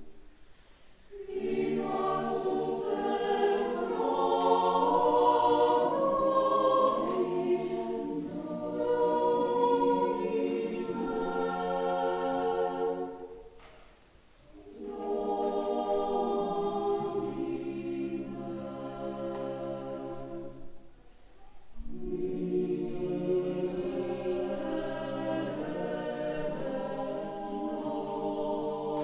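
A choir singing liturgical music for Mass in long sustained phrases, with short breaks between them about a second in, near fourteen seconds and near twenty-one seconds.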